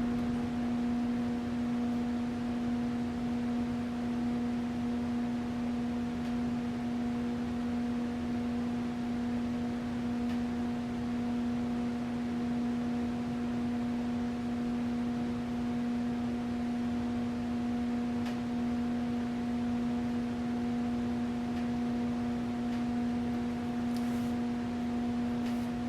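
56-inch KDK industrial ceiling fan running on its low speed: a steady motor hum with a faint whoosh of air and a few faint ticks.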